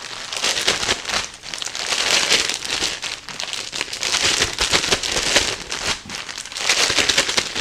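Plastic Ziploc bag crinkling and rustling as it is kneaded and shaken to coat beef tips in flour and seasonings, in uneven surges about a second long.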